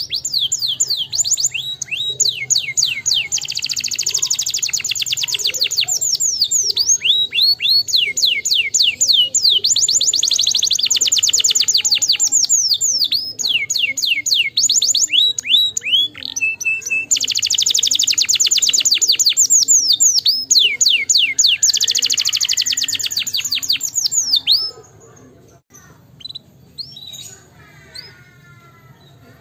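Domestic canary singing a long, fast song of rapid trills and rolls, strings of high notes sweeping down in quick succession. Near the end the song stops, leaving a few scattered chirps.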